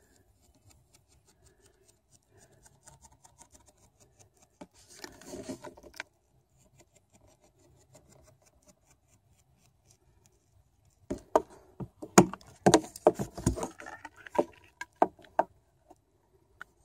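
A knife blade sawing through clear braid-reinforced vinyl tubing, heard as faint fine rapid clicking and scraping. About eleven seconds in come louder, irregular knocks and clatter as the tubing is handled and bent against the wooden tabletop.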